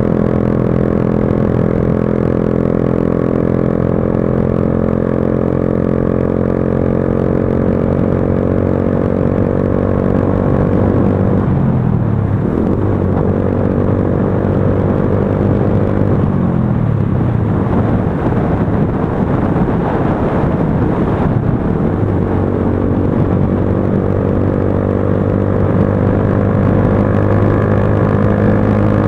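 Motorcycle engine running steadily at highway cruising speed. About twelve seconds in, and again around sixteen seconds, the engine note falls as the revs drop, then it settles back to a steady note.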